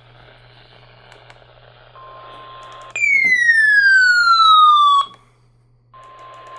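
Weather radio receiver hissing with static, with a steady tone near 1 kHz, the NOAA Weather Radio 1050 Hz warning alarm tone, coming in about two seconds in. About three seconds in a much louder tone slides steadily downward for two seconds and cuts off; after a short pause the alarm tone returns over the static.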